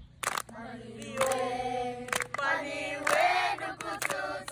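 A group of children and women singing together unaccompanied, with long held notes.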